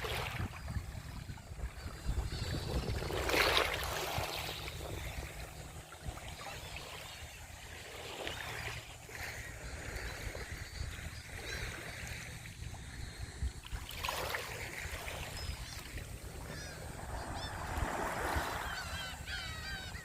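Small waves washing onto a shore, each swelling and falling back about every four to five seconds, over a low wind rumble. Birds chirp briefly near the end.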